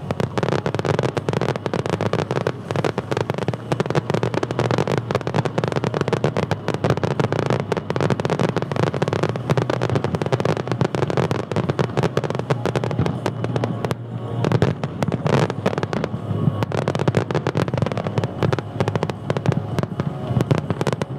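Fireworks display barrage: shells bursting and crackling in rapid, dense succession, with a brief lull about fourteen seconds in before another flurry.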